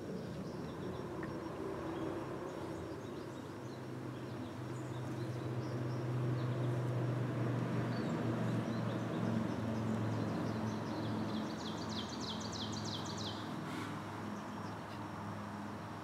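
Outdoor ambience: a low steady drone that swells through the middle and fades, with songbirds chirping and a fast bird trill about three quarters of the way through.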